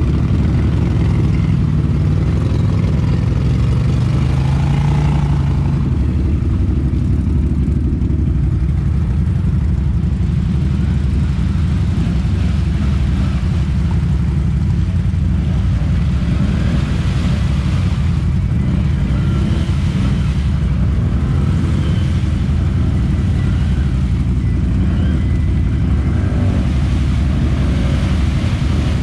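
ATV engine running hard under load as the quad churns through deep mud with its wheels spinning, a loud, steady low-pitched drone.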